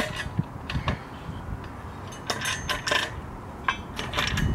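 Metal clinking and knocking as an LED light bar's mounting brackets and bolts are set down onto welded steel square-tube mounts: a scattered string of light, sharp clicks and taps.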